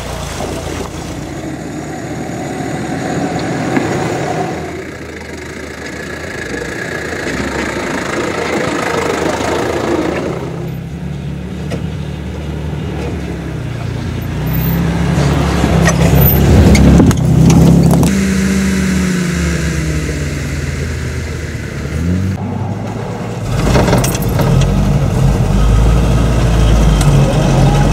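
A stream rushing over a small waterfall at first, then off-road 4x4 engines working at low speed over rough ground. Around the middle a Mercedes G-Class engine rises and falls in revs as it climbs through ruts. The last seconds are an old Jeep's engine running, heard from inside its shaking cabin.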